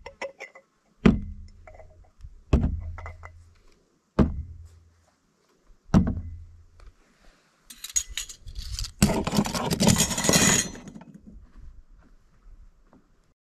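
Objects being handled and set down: four separate knocks with light clinks, about one and a half seconds apart, then a couple of seconds of dense rattling clatter.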